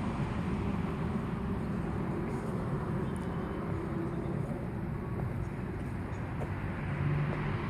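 Steady low rumble of outdoor background noise, without clear events.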